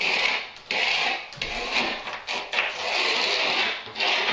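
Scratchy strokes of a marking tool drawn along plasterboard, as the outline of the shower tray is marked on the wall: four or five strokes of about a second each.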